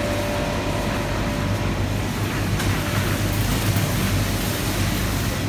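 Steady supermarket background hum and hiss from refrigerated display cases and ventilation, with a faint steady tone that fades out about a second in.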